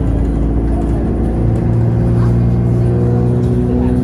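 Alexander Dennis Enviro200 single-decker bus under way, heard inside the passenger saloon: its engine and drivetrain drone steadily, with a low rumble and a few steady humming tones.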